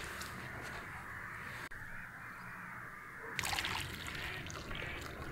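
Steady rushing of a fast-flowing river, with a short rough rustling sound starting about three and a half seconds in.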